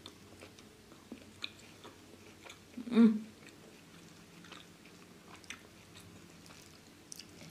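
A person chewing and biting into crispy fried chicken and rice, soft mouth noises with small scattered clicks and crunches. About three seconds in comes one short, loud vocal sound from the eater.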